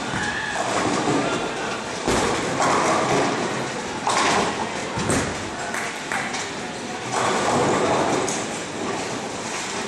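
Bowling alley din: several sharp knocks and thuds of bowling balls, and clattering stretches of a second or so like pins falling on the lanes, over murmuring voices in a large hall.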